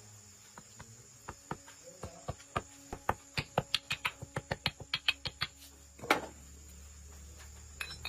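A run of quick, sharp knocks that come faster, up to about five a second, then stop, followed by one louder single knock about six seconds in. A steady low hum follows it.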